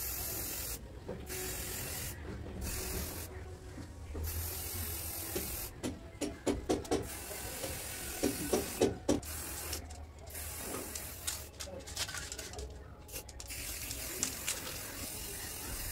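Aerosol spray-paint can hissing in repeated bursts with short pauses between them as black paint is sprayed onto a welded steel rocket stove. A run of short clicks and knocks comes between the bursts about six to nine seconds in.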